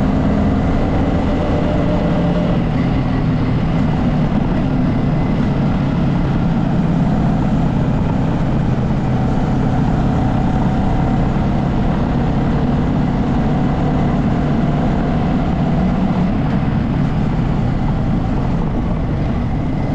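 A vehicle engine runs steadily under load as it climbs a mountain road, with road and wind noise.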